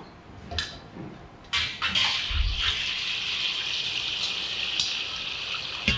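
Water running from a kitchen tap: a few light knocks, then from about a second and a half in a steady hiss of flowing water.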